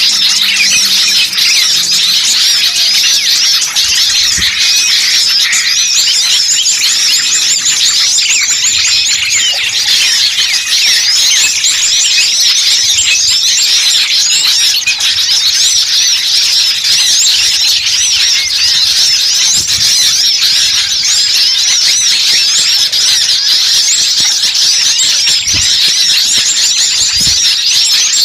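A dense, noisy chorus of many small songbirds chirping and chattering at once, fast overlapping high calls with no let-up. This is a mixed-species bird-lure recording of a noisy small-bird flock.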